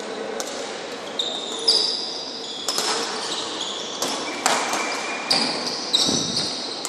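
Badminton rally: sharp smacks of rackets striking the shuttlecock, roughly once a second, with shoes squeaking on the court floor in short high squeals.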